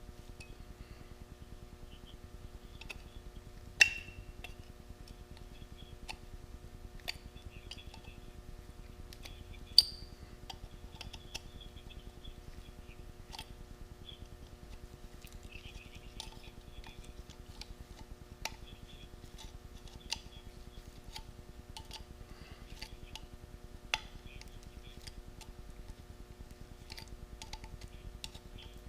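Sporadic sharp metallic clicks and clinks of a flat-blade screwdriver and small duckbill pliers prying and bending a cut louver in a chainsaw's sheet-metal muffler. Two clicks are much louder, a few seconds in and about ten seconds in, over a steady hum.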